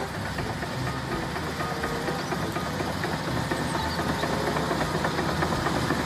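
Komatsu D155AX crawler bulldozer's diesel engine running steadily, with a dense clatter from its steel tracks as it pushes a pile of earth with its blade.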